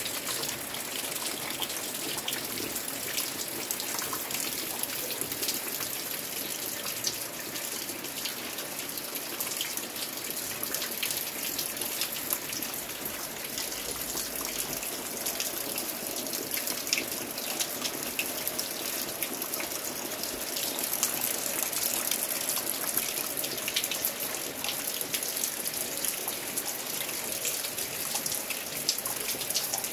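Steady rain, with water dripping and trickling off the edge of a corrugated roof: many small drop ticks over an even hiss, a little louder for a moment about two-thirds of the way through.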